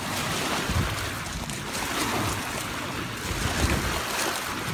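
Small waves washing steadily onto a gravel lakeshore, with wind buffeting the microphone in uneven low rumbles.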